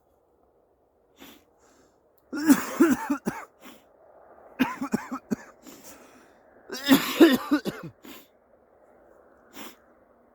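A man coughing in three bouts, starting about two, four and a half, and seven seconds in.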